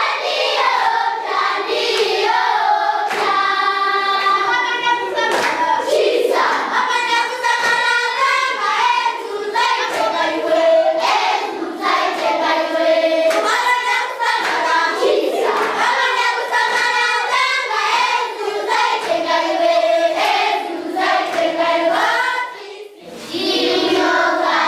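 Group of children singing together in chorus, with hand claps through the song. Near the end the singing breaks off and a voice speaks.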